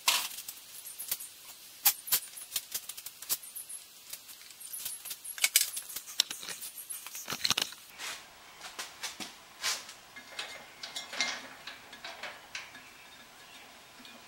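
Irregular clinks, knocks and light rattles of hands handling tools and parts while fitting a tire onto a bandsaw's lower wheel. The knocks come thickly at first and thin out toward the end.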